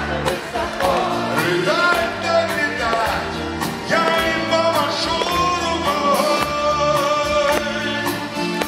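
Live band music: a man singing with 12-string acoustic guitar strumming and drums keeping a steady beat.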